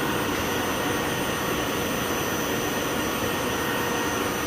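Water booster pump running with a steady mechanical rushing noise and a few constant high whining tones.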